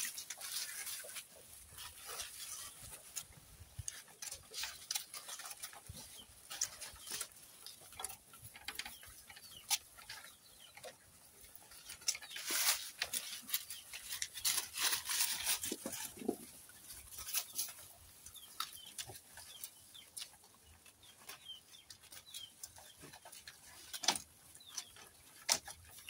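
Goat kids browsing on cut leafy branches: leaves rustling and crackling as they pull at them, in many short scattered bursts. Occasional animal calls sound in the background.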